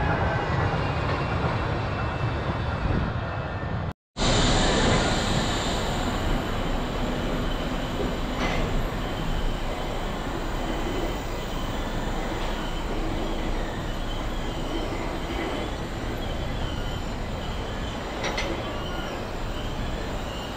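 Wuppertal Schwebebahn suspended monorail train running on its overhead steel rail: a steady rumble with faint high squealing tones, and a squeal gliding down in pitch at the start. The sound cuts out for a moment about four seconds in, then the running noise carries on.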